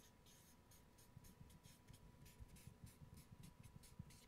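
Faint squeak and scratch of a marker pen writing on flipchart paper: a quick, uneven run of short strokes as letters are drawn.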